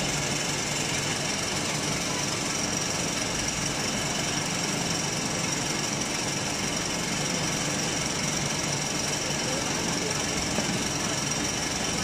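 Hydraulic metal-shavings briquetting press running: a steady mechanical din from the press and its hydraulic power unit, with a steady high-pitched whine over it.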